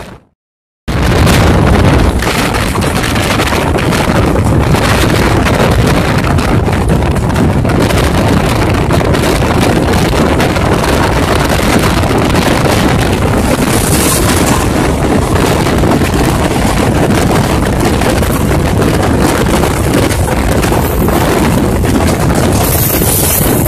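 Wind buffeting the microphone at the open door of a fast-moving express coach, mixed with the train's steady running noise; it starts after a brief silent gap. Near the end a suburban EMU local train passes close on the next track.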